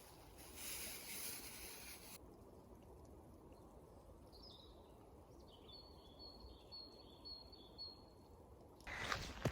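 Quiet outdoor ambience with a steady low rumble, and in the middle a small bird calling a run of about six short, high notes.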